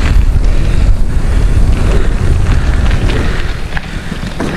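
Wind buffeting the action camera's microphone as the mountain bike climbs a gravel road: a loud, low rumbling noise that eases off near the end.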